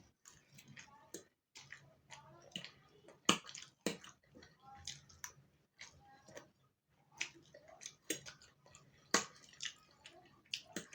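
Close-miked chewing with wet mouth smacks and sharp clicks, a few a second and uneven, the loudest about three seconds in and again near nine seconds.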